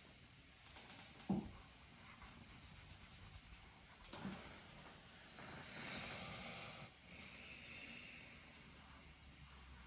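Faint felt-tip marker scratching back and forth on paper as a drawing is coloured in, loudest about six seconds in. Two brief knocks, about a second in and about four seconds in.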